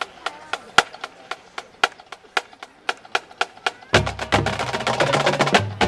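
Massed high-school marching bands: the percussion ticks out a steady beat of sharp clicks, about four a second. About four seconds in, the full band with brass comes in loudly over the beat.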